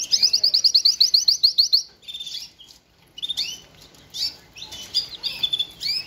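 Shirazi canary singing: a fast trill of rapidly repeated high notes for nearly two seconds, a brief pause, then varied chirping phrases.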